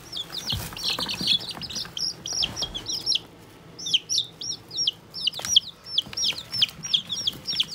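Chicks peeping, louder than all heck: a constant run of short, high cheeps from several birds, crowded and overlapping at first, then settling to about three or four a second. A hand brushes through the pine-shavings bedding a couple of times.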